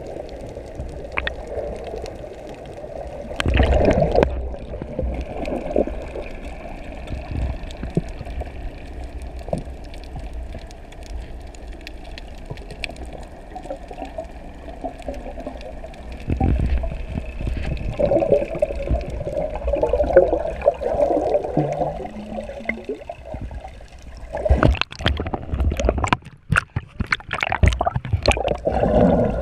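Water heard from a camera held underwater: muffled sloshing and gurgling, with a louder stretch of bubbling a few seconds in. Near the end come a run of sharp splashes as the camera breaks the surface in choppy water.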